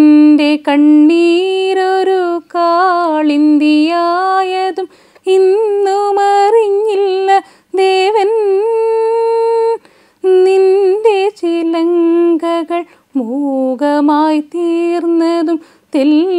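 A woman singing a slow Malayalam song solo and unaccompanied, held notes with much wavering ornamentation, in phrases broken by short pauses.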